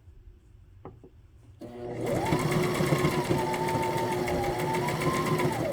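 Home sewing machine starting about a second and a half in and running steadily, stitching stretchy fabric with a twin needle; its motor whine rises quickly as it gets up to speed. A faint click comes just before it starts.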